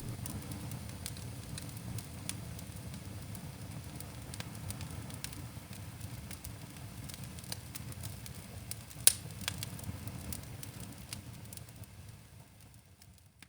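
Wood fire burning in a fireplace: a steady low rumble of flames with scattered sharp crackles and pops, one loud pop about nine seconds in. The sound fades out near the end.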